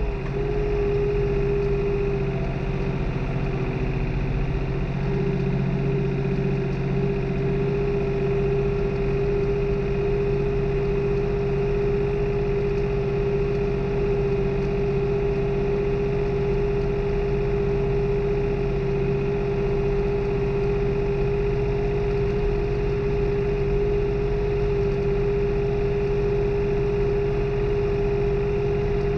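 New Holland tractor's diesel engine running steadily under load while tilling, heard from the driver's seat. A steady whine sits over the engine and dips slightly in pitch just after the start.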